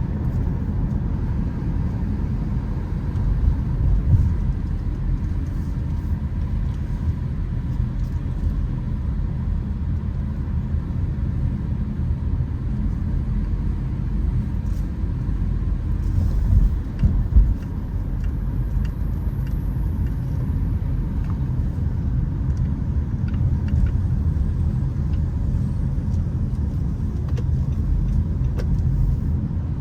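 Car travelling at speed: a steady low rumble of engine and road noise, with brief louder swells about four seconds in and again just past the middle.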